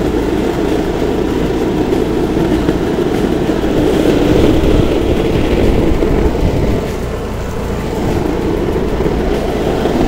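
Loud, steady wind buffeting the camera's microphone as it is carried along at speed.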